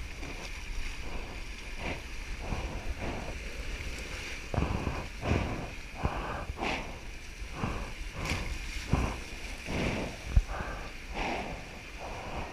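Hobie 16 catamaran hulls driving through choppy surf: uneven rushing splashes of water against the hulls, with wind noise on the microphone. A short sharp knock about ten seconds in.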